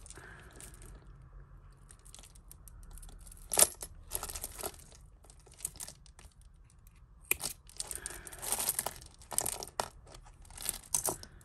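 Tangled costume jewellery being handled and pulled apart: beads and chains clicking and rattling against each other, with rustling. The sounds come in short spells with quieter gaps, and there is a sharp click about three and a half seconds in.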